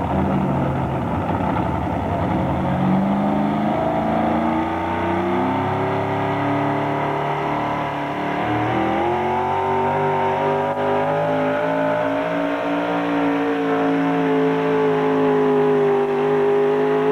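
Supercharged engine of a super modified 4x4 pulling truck at full throttle, hauling a weight-transfer sled. Its note climbs, dips briefly about eight seconds in, then rises again and holds high.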